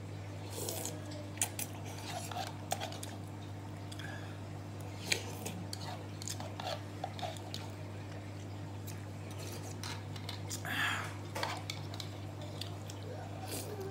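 A metal spoon and fork clinking and scraping against a ceramic bowl while eating soup, in scattered irregular clicks over a steady low hum.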